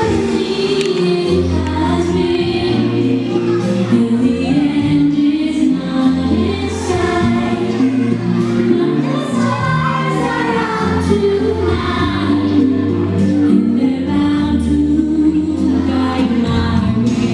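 Dance music with a choir of singing voices over sustained bass notes that change every couple of seconds, playing loud and steady.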